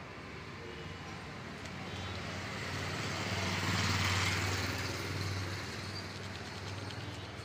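A road vehicle passing close by on the street. Its engine and road noise rise to a peak about four seconds in, then fade away.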